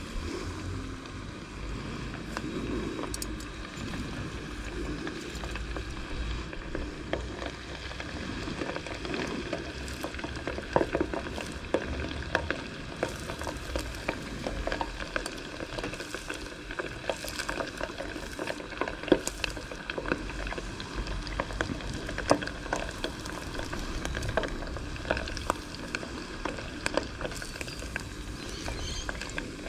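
Crumbed squid rings deep-frying in a saucepan of hot oil: steady sizzling and bubbling with a dense crackle of small pops.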